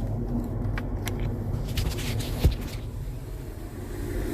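Small plastic clicks and rattles from the buzzer housing and its wiring connector being handled behind a truck dash, with one sharp knock about two and a half seconds in, over a steady low engine-like hum.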